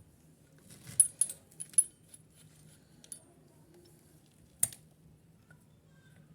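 A few sharp metallic clinks and taps, as of small metal parts or tools being handled: four in quick succession about a second in, then single clinks at about three seconds and four and a half seconds, over a faint steady low hum.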